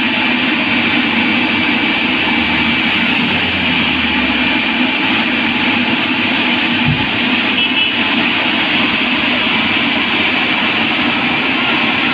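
Tata Hitachi EX 210LC crawler excavator's diesel engine and hydraulics working hard as the machine hauls itself up onto a lowbed trailer. It is a loud, steady mechanical din with a thin high whine in the first few seconds and a single low thump about seven seconds in.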